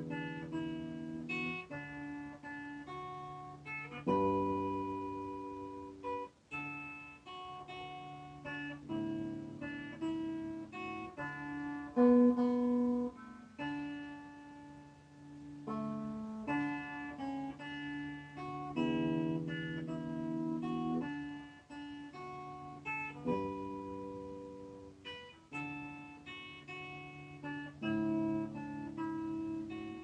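Acoustic guitar music: plucked notes and chords following one another, with no singing.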